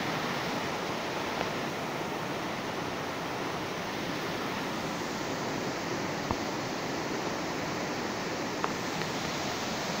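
Steady, loud rush of a large waterfall's falling water. Two faint knocks come through, one about six seconds in and another near the end.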